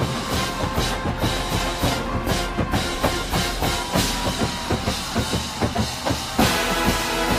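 Drum corps playing: a marching drumline of snare, tenor and bass drums beats out a fast pattern under the brass line's sustained chords, with one big ensemble hit near the end.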